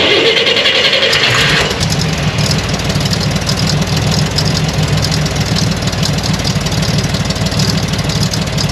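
A 1965 Corvair Monza 110's freshly rebuilt air-cooled flat-six, fitted with headers, is started. A brief burst of cranking runs for about the first second and a half, then the engine catches and settles into a steady, pulsing idle through the exhaust.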